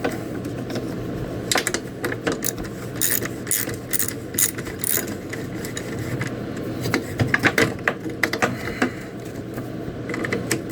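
Hand ratchet wrench clicking in uneven runs, with light metallic tool clinks, as a bolt or nut is worked loose.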